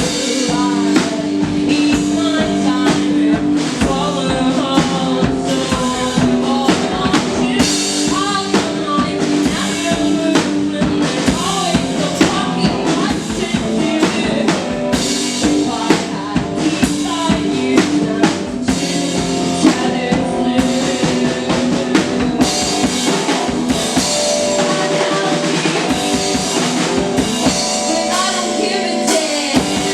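Live indie folk rock music: a drum kit keeps a steady beat with snare and bass drum hits under sustained instrument notes.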